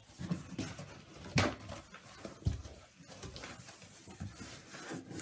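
Corrugated cardboard box flaps being pulled open and folded back by hand, rustling and scraping, with sharper cardboard scrapes about one and a half and two and a half seconds in.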